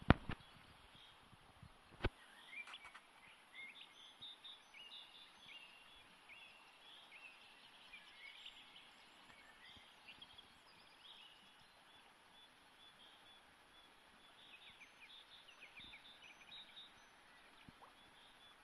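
Small birds chirping and singing faintly, many short repeated notes, over a steady low rush of flowing river water. A sharp click right at the start and another about two seconds in.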